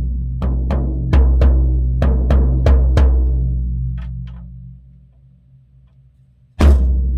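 Tama drum kit fitted with Evans heads being played: a run of about eight strikes around the drums in the first three seconds, their low ringing fading away, then a single loud hit about six and a half seconds in.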